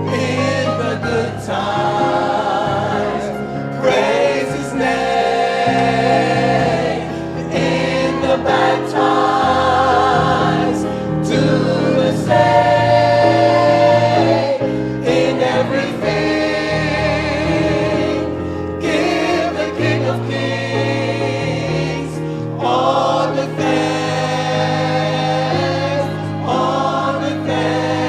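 Gospel choir singing, with vibrato on held notes, over a steady low accompaniment.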